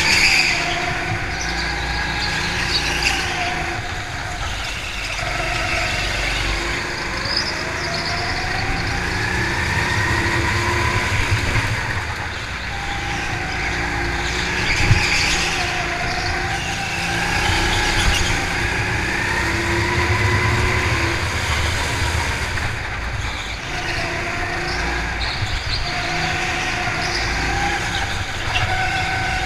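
Go-kart's motor heard from on board while it laps, its pitch climbing and falling back over and over, every few seconds, as it speeds up and slows for the corners.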